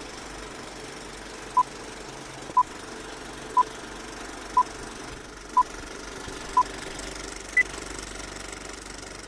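Film-leader countdown effect: a short beep once a second, six times, then one higher beep, over the steady running clatter of a film projector.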